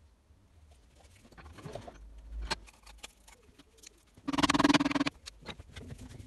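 Light clicks and knocks of metal parts being handled as a piston is fitted into a cylinder bore, and about four seconds in a loud steady pitched tone lasting under a second.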